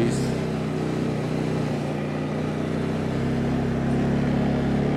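CFMoto quad bike engine running steadily as the ATV is ridden at low speed, growing a little louder about three and a half seconds in.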